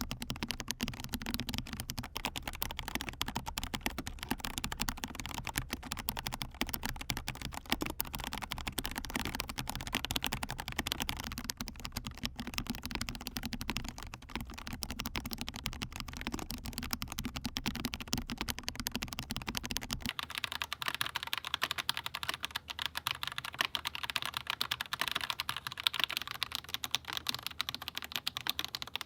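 Continuous fast typing on a mechanical keyboard with KTT Macaron Orange tactile, non-clicky switches: a dense stream of keystroke clacks. About two-thirds of the way through, the low hum underneath drops away and the keystrokes sound brighter.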